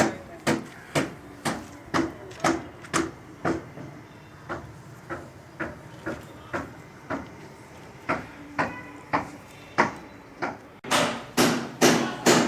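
Hammer blows struck steadily about twice a second, fainter through the middle; after a sudden break near the end, louder and slightly quicker blows.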